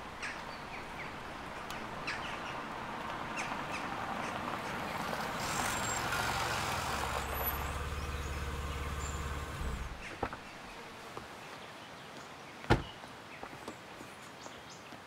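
A vehicle engine running with a low hum that grows louder, then cuts off suddenly about ten seconds in, under outdoor background noise with short bird chirps. A single sharp knock a couple of seconds before the end is the loudest sound.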